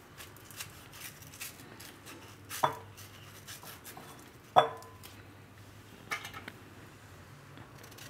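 A small kitchen knife cutting into a firm peeled raw mango, with soft scraping and small clicks of the blade through the flesh. Two sharp ringing clinks against the dishes come about two seconds apart, and a quick cluster of clicks follows near the three-quarter mark.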